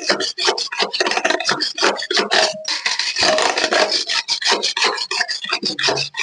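Curd being whisked by hand in a vessel: quick, even scraping strokes, about six or seven a second, with a short break near the middle.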